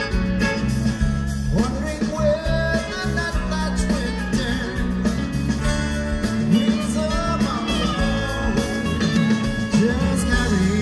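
Background rock song with guitar, a steady beat and a singing voice.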